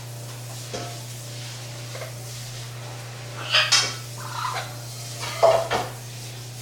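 Orange-winged Amazon parrots giving a few short squawks and chatter calls, the loudest about halfway through and again near the end, over a steady low hum.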